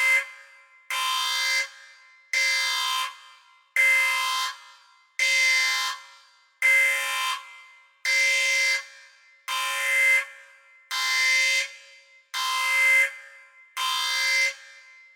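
Sci-fi spaceship alarm sound effect: a harsh, buzzing klaxon tone sounding in steady blasts, about one every second and a half, eleven times. Each blast is held at one pitch and then cuts off into a brief echo.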